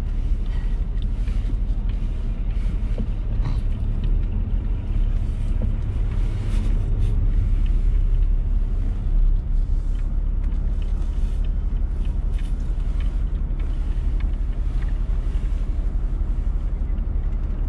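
Car driving in city traffic: a steady low engine and road rumble, with faint scattered street sounds over it.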